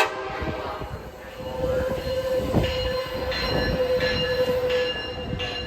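Amtrak Capitol Corridor passenger train rolling through the station with its wheels squealing on the rail: a steady squeal comes in about a second and a half in, joined by thinner, higher squealing tones about halfway through, over the rumble of the cars.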